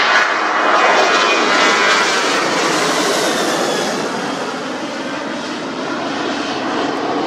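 Ryanair Boeing 737-800's twin CFM56-7B turbofans at takeoff thrust as the jet climbs out overhead: a loud, steady jet rush with a faint high whine. It is loudest in the first couple of seconds and fades slowly as the aircraft climbs away.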